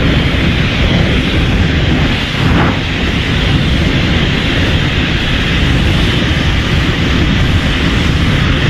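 Giant-monster sound effect: a loud, steady rumbling roar with no pitched call in it, like a jet engine or a drawn-out blast. A brief crackle cuts through about two and a half seconds in.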